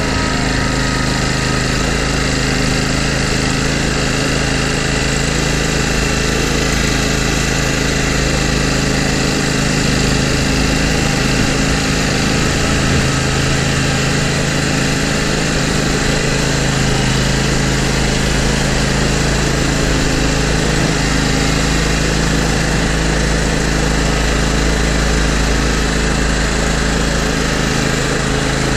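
Engine of a Toro GrandStand MultiForce stand-on mower, fitted with a snow plow, running steadily at a constant speed. It is heard close up from the operator's platform.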